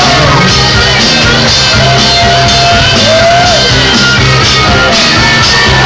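Live rock band playing loudly, with a man shouting and singing into a vocal microphone over it.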